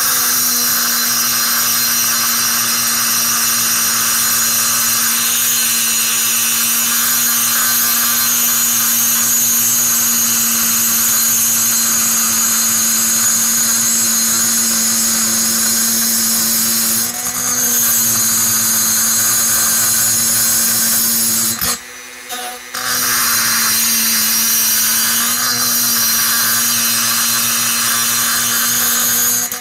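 Pencil grinder spinning a burr at high speed inside the port of a chainsaw cylinder: a steady whine with a scraping, grinding hiss as the port wall is ground to shape. It dips briefly about 17 seconds in, stops for about a second around 22 seconds in, then runs on again.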